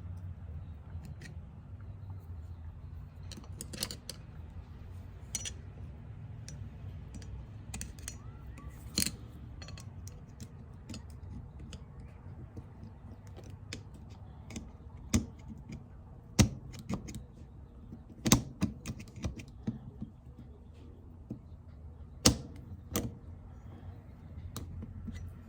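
Small metal parts of an automatic locking hub clicking and tapping as a retaining ring is worked into place by hand: scattered sharp clicks, several louder ones past the middle, over a low steady hum.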